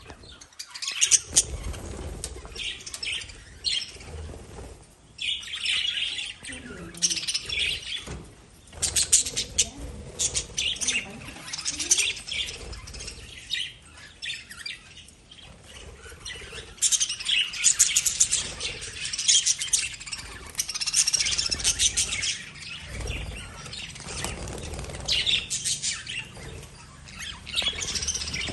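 Lovebirds chirping in rapid, high-pitched clusters, several calls overlapping, with short pauses between the clusters.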